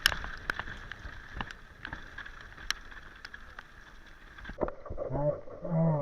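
Steady wind-and-water noise with scattered sharp clicks and knocks; about five seconds in, an animal's low, pitched calls begin and are the loudest sound.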